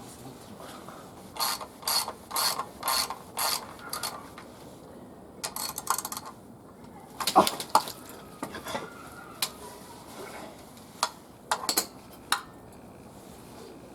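Ratchet wrench working a tight bolt: a run of about five strokes, roughly two a second, then scattered metallic clicks and knocks of hand tools, the loudest about seven seconds in.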